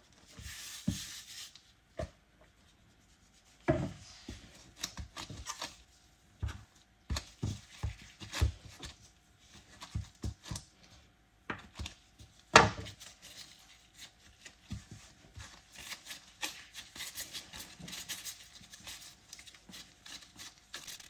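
Hands rolling soft cottage-cheese doughnut dough into small balls on a floured work surface. The hands rub, and soft taps and knocks come at an uneven pace as the balls are set down, with a couple of louder knocks.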